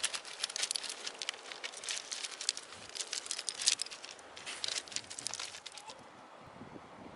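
Dry twigs and kindling crackling in a rapid, irregular run of sharp clicks, which stops about six seconds in.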